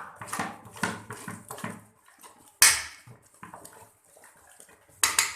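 Metal kitchen utensils clattering and scraping against a pot or dish, with a run of light knocks, a sharp strike about two and a half seconds in and a quick cluster of strikes near the end.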